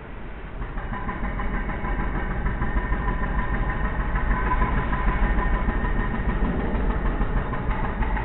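Train running: a steady low rumble with a thin whine over it. It grows louder from about a second in and eases slightly near the end.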